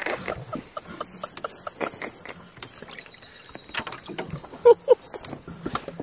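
Scattered knocks and light clatter inside a canoe as a hooked bass is brought alongside to be landed, with two short, louder pitched sounds about three-quarters of the way through.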